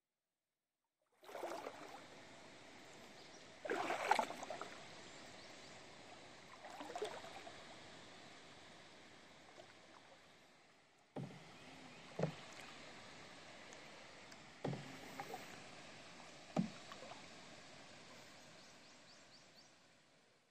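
Canoe paddle strokes in the water, one every two to three seconds, each a splash followed by dripping and swirling water. Some strokes come with a sharp knock.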